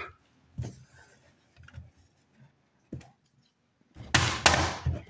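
A few faint knocks, then about four seconds in a loud rustling scrape close to the microphone, as things are handled right by it.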